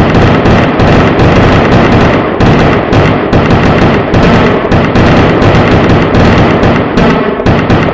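Rapid, irregular run of loud firecracker bangs going off in quick succession, many blasts per second and overlapping with hardly a gap.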